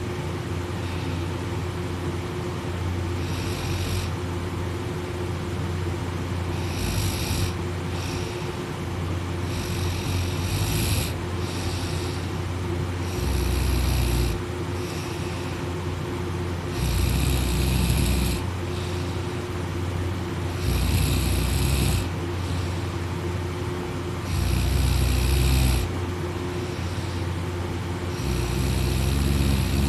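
A person snoring in deep sleep, about eight snores, one every three to four seconds, the later ones deeper and louder. A steady low hum runs underneath.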